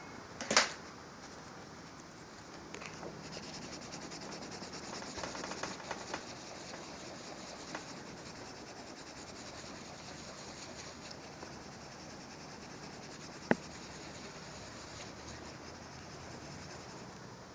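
Pencil scratching and rubbing on lined notebook paper as a drawing is shaded and blended, busiest from about three to seven seconds in. A sharp click sounds just after the start, the loudest thing heard, and another near the end.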